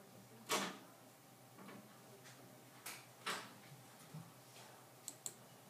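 Quiet room tone broken by a few faint, short noises: the clearest about half a second in and again just after three seconds, with small clicks near the end.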